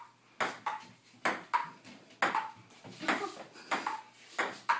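Table-tennis ball in a quick back-and-forth rally, bouncing on the table and being struck back: about ten sharp pocks in pairs, each with a short ring.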